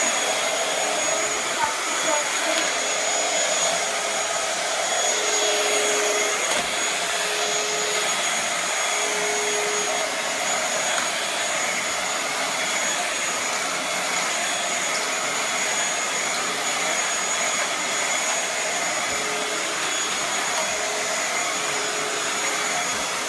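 Bissell Featherweight bagless stick vacuum, a 140-watt model, running steadily: a rush of air with a high, steady whine.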